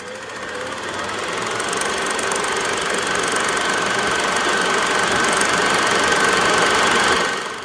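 Film projector running, a rapid, steady mechanical clatter that swells in over the first couple of seconds and fades out near the end.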